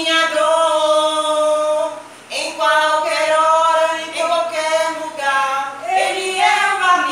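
Two women singing a duet together, unaccompanied. They hold a long note, break briefly for breath about two seconds in, then sing on, stepping up in pitch near the end.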